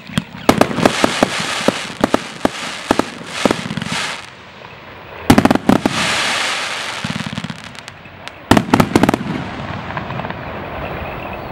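Inca Show 245T firework cake firing: a rapid string of sharp launch pops and bursts with crackling glitter. A loud burst about five seconds in is followed by a long crackling fizz, then a quick volley of bangs comes near nine seconds and fades into trailing crackle.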